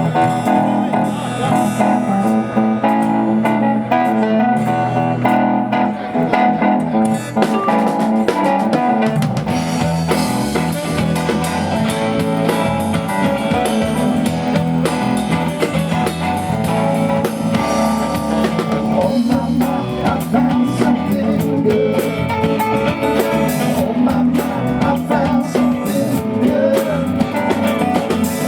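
Live band playing a blues song: guitar and drum kit, the sound getting fuller about nine seconds in.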